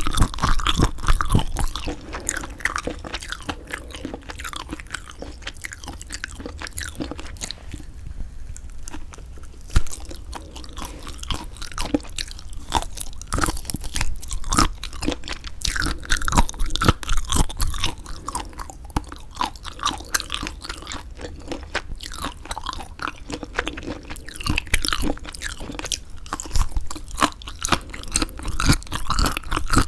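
Close-miked chewing of semi-dried squid: a steady run of wet, sticky chews and small crackles, with a sharp snap about ten seconds in.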